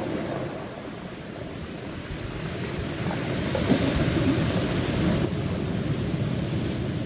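Sea waves washing over a rocky shore, with wind buffeting the microphone; a wave surges in about three and a half seconds in and then eases off.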